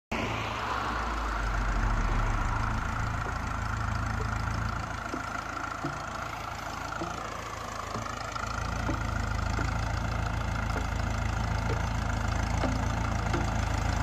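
Ferguson TEF tractor's four-cylinder diesel engine running steadily under load while pulling a plough. It gets a little softer for a few seconds mid-way, then steadies and gets louder again after about eight seconds.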